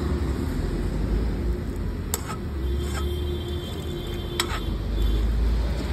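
Steady low rumble of roadside traffic and wind, with two sharp clicks about two seconds apart.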